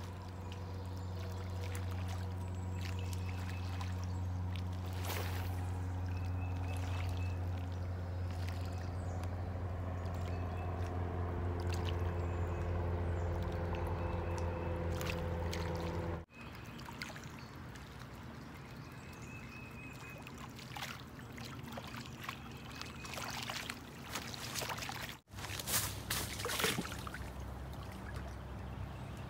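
Small waves lapping at a lake shore, with scattered light clicks and taps. A steady low engine drone runs under it for about the first half and cuts off suddenly.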